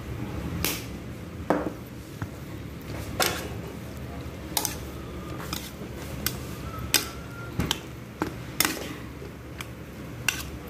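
Metal spoon stirring raw chicken pieces in a stainless steel bowl, knocking against the bowl in a dozen or so irregular sharp clinks.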